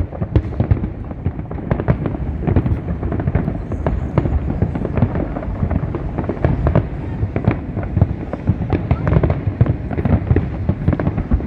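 Fireworks display going off continuously: a rapid, dense run of bangs and crackling cracks, several a second, over a steady low rumble of detonations.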